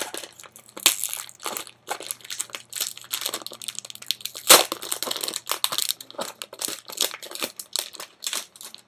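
Plastic wrapper being pulled off a new keyboard and crumpled: dense, irregular crinkling, with one loud crunch about four and a half seconds in.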